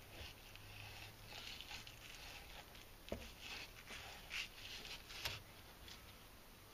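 Faint, irregular scraping of a knife blade sliding between the skin and flesh of a young yellowtail (inada) fillet as the skin is cut away, with a couple of light clicks of the blade against the cutting board.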